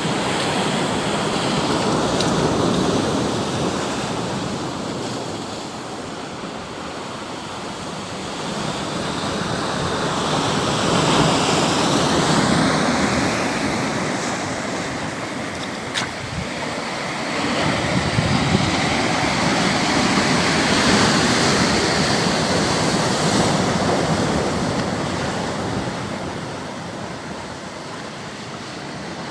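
Sea waves breaking and washing up the shore, the rush of surf swelling and fading in long surges, with a single sharp click about halfway through.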